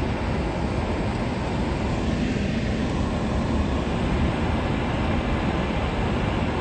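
Steady road and engine noise heard from inside a moving car's cabin.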